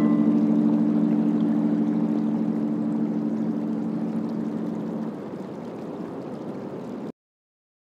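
Background music's last plucked-string chord ringing out and fading over a steady noise, then cutting off to silence about seven seconds in.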